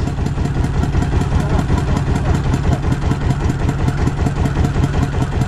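Small engine of a rice thresher running steadily at idle with an even, rapid pulse.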